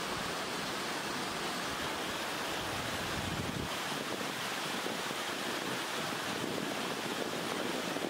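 Steady rushing of a rocky forest stream, an even hiss of flowing water; a low rumble underneath drops away about halfway through.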